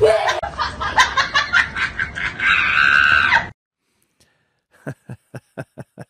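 A high, excited voice screaming and laughing, ending with a drawn-out shriek that cuts off abruptly. After a short silence, a quick run of short sounds, about four a second, fading away.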